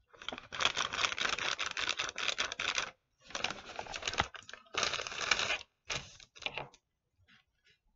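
Brown paper bag crinkling and rustling as it is handled and pressed flat on a wooden desk, in four stretches that stop about two-thirds of the way in.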